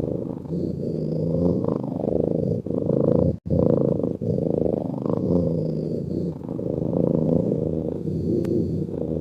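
A sleeping cat's steady, purr-like snoring rumble, continuous and uneven in loudness. It drops out for an instant about three and a half seconds in.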